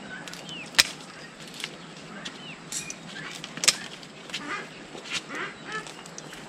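Scissors snipping through dragon fruit stems on the cactus: two sharp snips, about a second in and just past the middle, with lighter clicks between. Short high calls sound now and then in the background.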